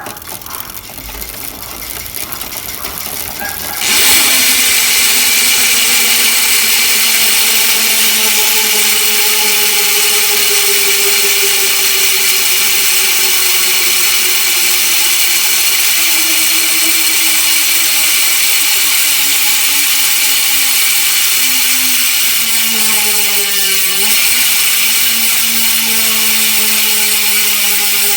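Speedone Sniper 150T ratchet freewheel hub buzzing as the rear wheel coasts, its engagement clicks so fast they merge into one loud, steady drone. It cuts in abruptly about four seconds in. Its pitch slowly falls as the wheel slows, dips briefly near the end, and picks up again.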